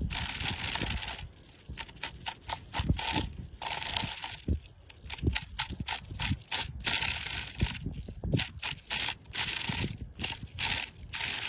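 Scratchy rubbing noise in quick, irregular bursts, with a low rumble underneath and a brief lull about a second and a half in.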